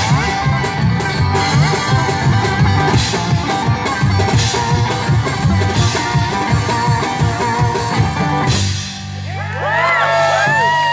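Live band of upright bass, guitar and drums playing the last bars of a rock and roll song and stopping sharply about eight and a half seconds in. Then audience whoops and cheers sound over a steady amplifier hum.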